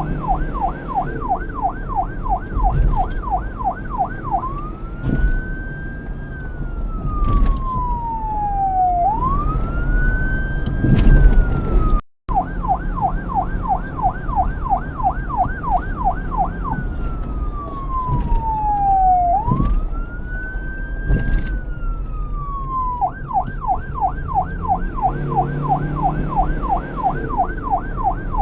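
Police car electronic siren switching between a fast yelp of about three pitch sweeps a second and a slow wail that rises and falls over several seconds, going yelp, wail, yelp, wail, yelp. It cuts out for a split second about twelve seconds in, then carries on.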